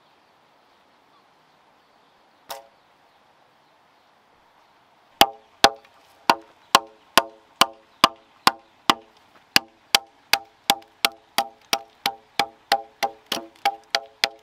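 Machete chopping into a round wooden log: a single knock, then from about five seconds in a steady run of sharp chops, about two a second, each with a short woody ring.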